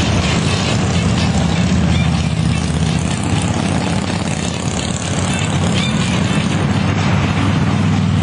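Motorcycles riding at a steady cruise, a constant low engine rumble mixed with road and wind noise.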